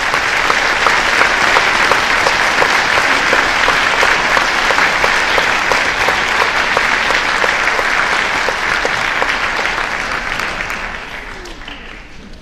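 Audience clapping after an orchestra piece ends, a dense steady applause that dies away near the end.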